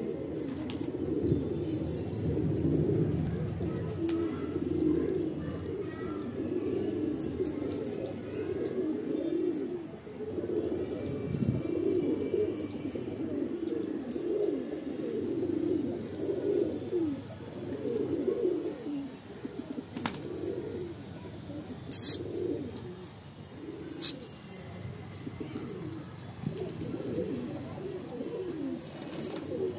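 Domestic pigeons cooing continuously, many low overlapping coos at once. Three sharp clicks break in about two-thirds of the way through; the middle one is the loudest sound in the clip.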